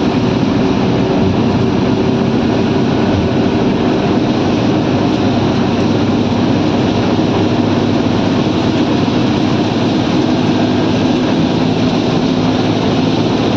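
Steady engine drone and road noise of a vehicle travelling at highway speed, unchanging throughout.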